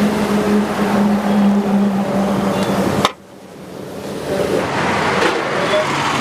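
Steady road traffic noise with a low engine hum. About halfway through it cuts off abruptly, then builds back up.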